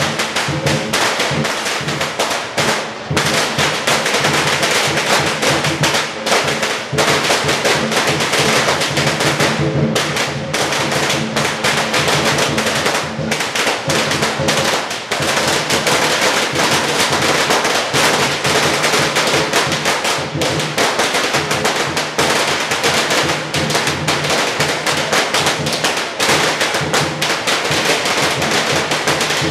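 Firecrackers crackling in a rapid, continuous rattle, over the beat of drums and clashing cymbals.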